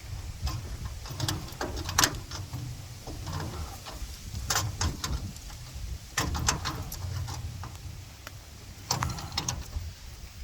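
Channel-lock pliers turning and tightening a threaded steel pipe fitting, giving irregular metallic clicks and scrapes as the jaws grip and slip and re-grab. A steady low hum runs underneath.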